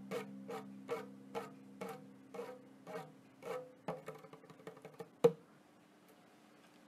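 Guqin, the Chinese seven-string zither, plucked in a slow repeated figure of about two notes a second over a low lingering tone, the notes growing fainter and more spaced. A single sharp snap comes about five seconds in, after which the strings fall quiet under a palm laid across them.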